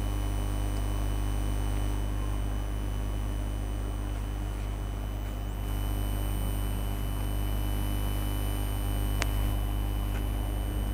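Steady low electrical hum with a faint hiss, and one sharp click about nine seconds in.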